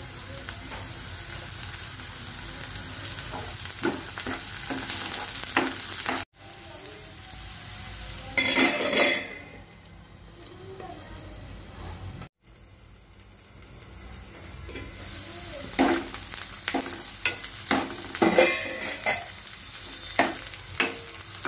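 Chopped onions, curry leaves and green chillies sizzling in hot oil in a nonstick kadai, stirred with a steel spoon that scrapes against the pan in short strokes. The sizzle cuts off abruptly twice, with a quieter stretch between.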